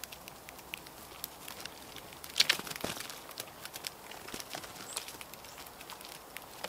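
Blue jays and grackles hopping and pecking in dry leaf litter and wood chips: scattered light rustles and clicks, with a louder burst of rustling about two and a half seconds in.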